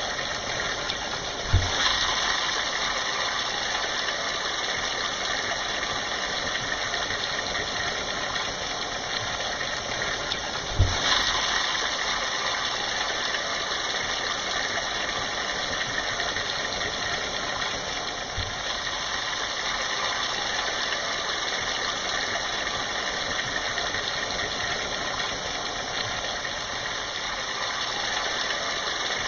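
Heavy rain falling in a steady downpour hiss. Two short low thumps come through it, one about a second and a half in and one about eleven seconds in.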